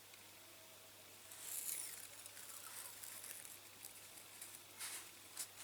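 Faint, crisp rustling of thin masking tape being pulled off and pressed onto a small diecast model by hand, starting about a second in, with a few light ticks of handling near the end.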